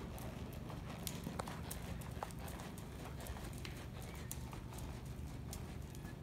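Hoofbeats of a ridden horse moving over soft dirt arena footing, heard as scattered, irregular light clicks over a steady low hum.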